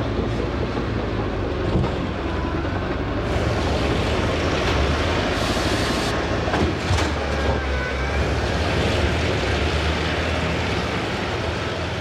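Tracked timber harvester at work felling trees: steady diesel engine rumble with hydraulic noise and clanking, and sharp knocks a few times as the head grips and cuts trunks.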